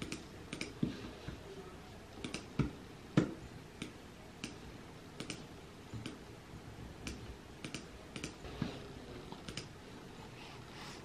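Irregular clicks of typing on a computer keyboard, a few a second, with several louder dull knocks in the first few seconds.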